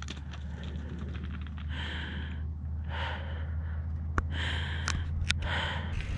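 A cyclist breathing hard while pedalling, a series of breaths about a second apart, over a steady low rumble from the moving bike. Three sharp clicks come in the second half.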